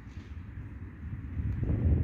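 Wind buffeting the microphone: a gusty low rumble that swells and gets louder about one and a half seconds in.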